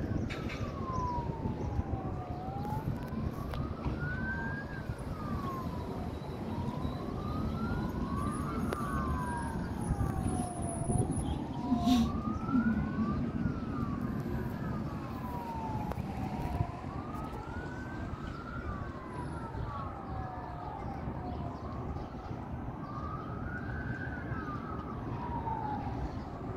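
Emergency vehicle sirens wailing, two of them overlapping, each sliding slowly up and down in pitch every few seconds, over a steady low rumble of city noise. There is a single sharp click about halfway through.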